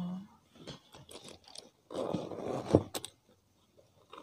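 Hands handling a leather handbag: light rustling and small clicks from its fittings, then a rasping rustle lasting about a second, starting about two seconds in and ending with a couple of sharp clicks.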